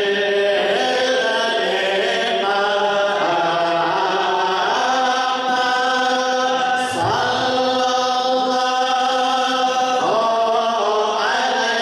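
Group of men chanting dhikr in unison, holding long notes and stepping from one pitch to the next every second or two.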